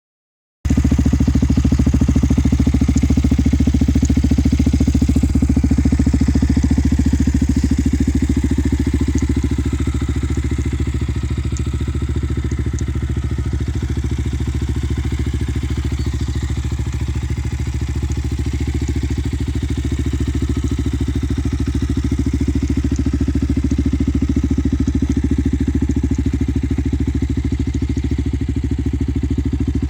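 Yamaha WR125X's 125 cc single-cylinder four-stroke engine idling steadily.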